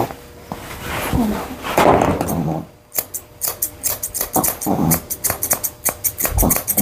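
Chunker shears snipping the hair on a Yorkshire terrier's face, a fast run of quick snips through the second half. Before that, the dog makes noisy vocal sounds.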